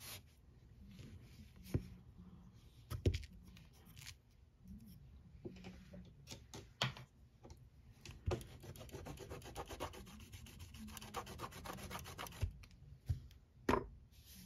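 Quick rubbing strokes of a brush scrubbing polish off a metal nail stamping plate, in a steady run for a few seconds past the middle. Several sharp clicks of tools against the plate come between.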